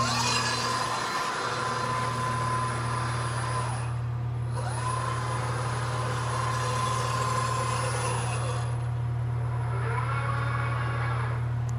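Nachi SH200 industrial robot's servo drives whining as the arm moves through its axes, over a steady low hum. The whine holds a steady pitch, dips and comes back about four seconds in, and rises and falls in arcs in the last few seconds as the axes speed up and slow down.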